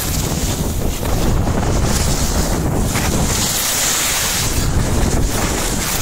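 Wind buffeting the microphone of a camera moving downhill on skis, a steady low rumble, with the hiss of skis sliding over packed snow that grows louder in the middle.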